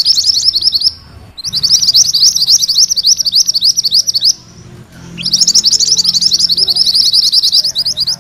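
Mantenan kuning, a caged songbird, singing its rolling trill (ngerol): fast runs of high, repeated upslurred notes in three bouts of about three seconds each, broken by short pauses.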